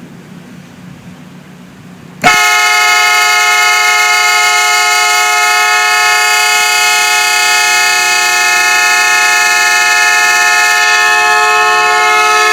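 Compressor-fed air train horn, rated 145 dB, going off as a smartphone-triggered alarm clock. After about two seconds of low background rumble it starts suddenly and blares a loud, steady multi-note chord without a break.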